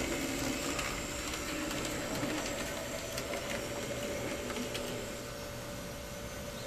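N-scale model tram running along the track, its small motor whirring steadily with a few faint clicks from the wheels on the rails, getting a little quieter about five seconds in as it moves away.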